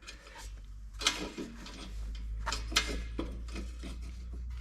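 Light metallic clicks and taps at irregular intervals as small carburetor linkage parts on a mower engine are handled and worked loose, over a steady low hum.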